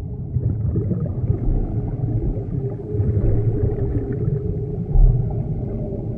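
Deep low rumble of creature sound design for an animated sea monster, with a faint drawn-out moaning tone through the middle and a heavier low boom about five seconds in.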